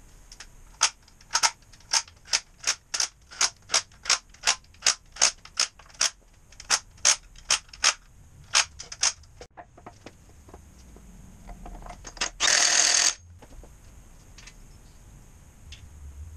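A run of about twenty sharp mechanical clicks, roughly three a second, that stops about nine seconds in. A short hissing burst follows about twelve seconds in.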